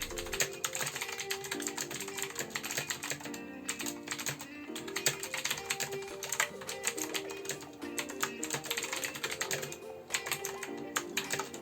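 Typing on a mechanical keyboard with blue clicky switches: a quick, irregular run of crisp key clicks, over background music.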